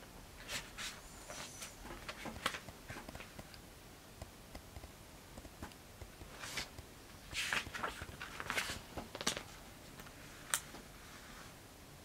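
Quiet rustling of bedclothes and a paperback book being handled: a string of short rustles and soft clicks, busiest around seven to nine seconds in.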